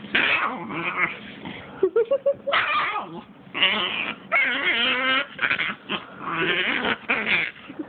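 Two pit bulls play-fighting, one giving rough, demon-like growls in repeated bursts with short gaps between.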